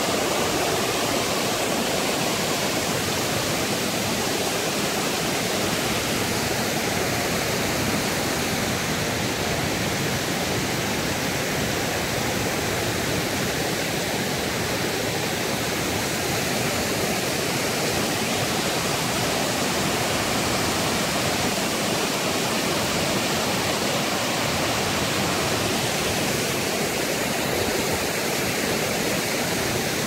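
Steady rush of falling and flowing water from a waterfall of many thin cascades pouring over a mossy rock ledge into a shallow, rocky river.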